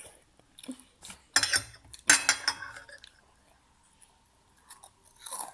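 Eating utensils knocking against a dish: two loud clinks a little over a second apart, the second ringing briefly, then a few faint taps.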